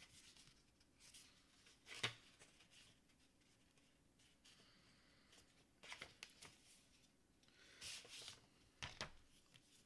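Faint rustling and handling of a paper booklet as it is opened and its pages are turned, with a few soft taps. The sharpest tap is about two seconds in, and more small rustles come near the end.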